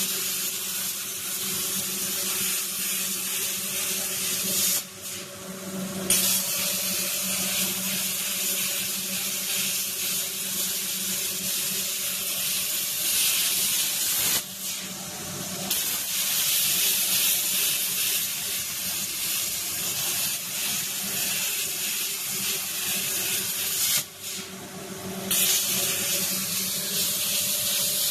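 CNC plasma cutter arc hissing steadily while cutting, breaking off for about a second three times, with a steady low hum underneath.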